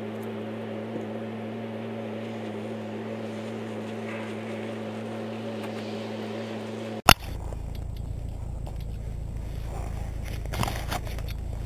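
A steady droning hum with several even tones, broken off by a sharp click about seven seconds in. Then a rollator's wheels rolling over packed snow: a low rumble with scattered crunches and scrapes.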